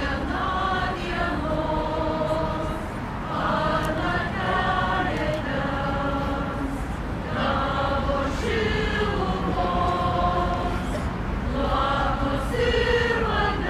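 A choir of many voices singing together in long held phrases, with short breaks between phrases and a low rumble underneath.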